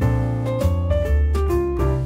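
Instrumental background music with a bass line and a steady beat.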